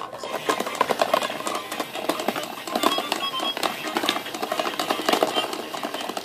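Battery-powered ball-popper dragon toy switched on: its fan motor runs, a short electronic tune plays, and plastic balls clatter and pop up out of the bowl in quick, irregular clicks.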